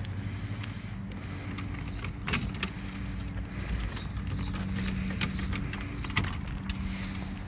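Kayak cart with 15-inch airless rubber wheels rolling along concrete under a loaded kayak, its steel frame rattling and clicking over the joints, with footsteps alongside. There are sharp knocks about two seconds in and again about six seconds in, over a steady low hum.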